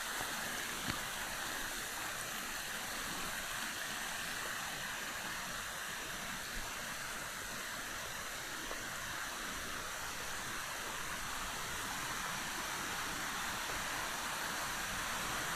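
Steady rushing of falling water from a waterfall and its stream.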